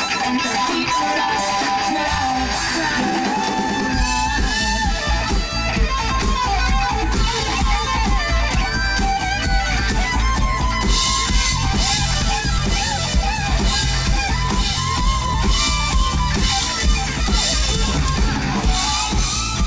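Live band playing an instrumental passage led by guitar, with no singing. A heavy low bass-and-drum beat comes in about four seconds in.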